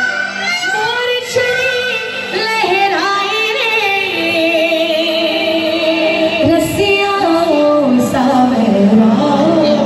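A woman singing a devotional Hindi bhajan live with instrumental accompaniment through a PA. She holds long wavering notes that step down in pitch through the second half.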